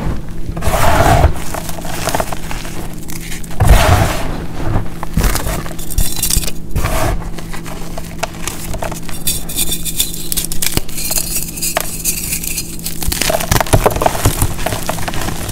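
Pressed blocks of a gym chalk, baby powder, corn starch and baking soda mix crushed and crumbled by hand into loose powder. Soft crunching and crackling comes in uneven handfuls, with the rustle of powder between them.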